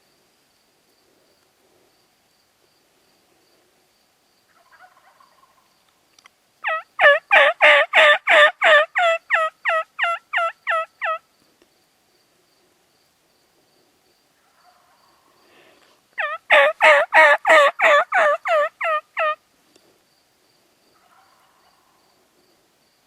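Two long series of turkey yelps, each a run of a dozen or more evenly spaced notes at about three a second, with softer faint calls between them.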